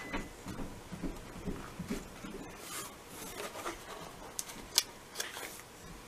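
Paper box being handled and pressed into shape: soft rustling, rubbing and scraping of paper with scattered light clicks, and one sharper click a little under five seconds in.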